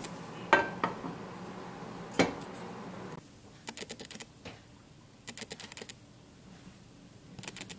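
Two knocks of a spatula against a frying pan. Then several short runs of light, rapid clicking as a fried prawn is handled on a ceramic plate.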